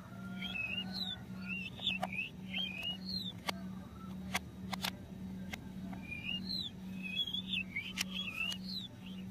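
Small sharp clicks from a plastic toy screwdriver turning a plastic screw out of a toy helicopter, over two runs of quick high chirps.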